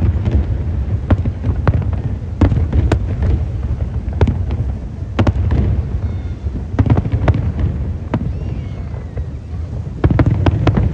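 Aerial fireworks display: shells bursting overhead in irregular sharp bangs over a continuous low rumble of booms, the bangs coming thick and fast near the end.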